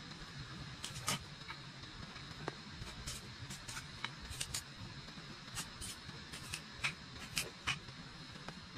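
Knife cutting and splitting thin kindling sticks by hand: a string of sharp, irregular wooden clicks and cracks, the loudest near the end, over a steady background hiss.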